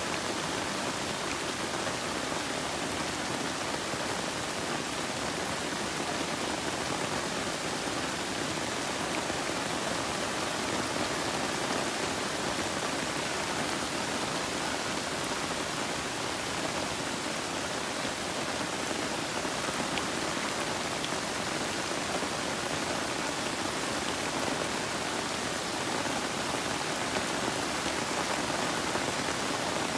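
Steady rain falling on a garden's broad-leafed plants and foliage: an even, unbroken hiss.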